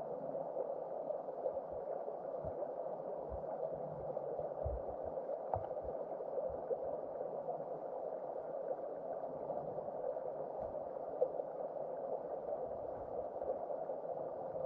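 River water flowing in a steady rushing wash, with a few brief low thumps in the first half.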